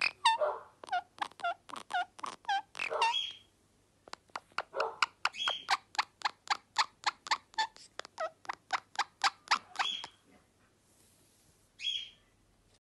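Blue Indian ringneck parakeet giving long runs of short, squeaky chirps that dip in pitch. They come about three a second at first, then, after a short pause, faster at about five a second. They stop about ten seconds in, and one last call comes near the end.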